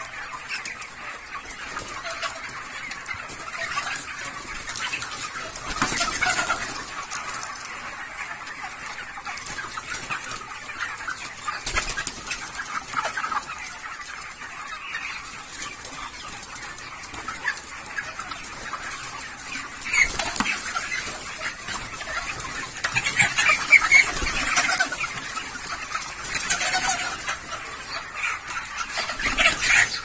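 A large flock of broiler chickens clucking and chirping continuously, a dense overlapping chatter of short calls, with louder flurries now and then, strongest a little past two-thirds of the way through.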